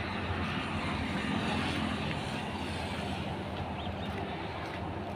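A motor vehicle engine running steadily, a low even hum under a rushing hiss.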